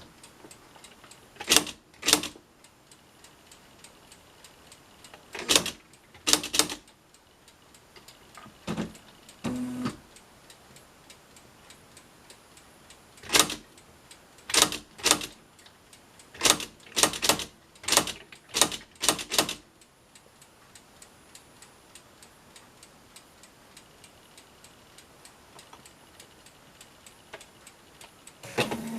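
Smith-Corona SE100 electronic daisywheel typewriter printing: sharp strikes of the print hammer driving the daisy wheel's characters through the ribbon onto the paper, singly and in quick runs of several, with pauses of a few seconds between. A couple of duller, lower thuds come once partway through and again at the end, under a faint, even ticking.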